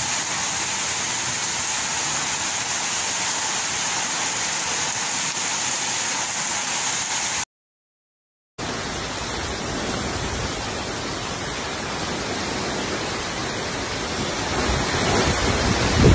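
Heavy tropical-storm rain pouring in a steady hiss. About halfway through it cuts out to dead silence for about a second, then resumes as a denser rush of rain and fast floodwater, growing louder near the end.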